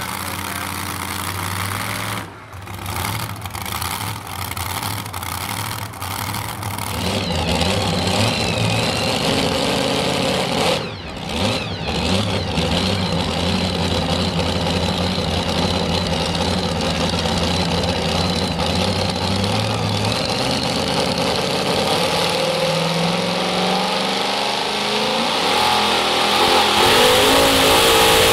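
Supercharged engine of a modified two-wheel-drive pulling truck idling at the starting line, then revved up with rising pitch and growing louder near the end.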